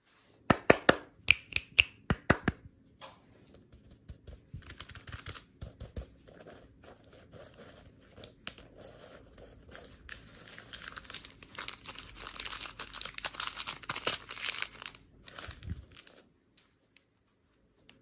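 A quick run of sharp snaps, then a packaging wrapper being crinkled and torn open for several seconds, the crinkling growing busier before it stops near the end.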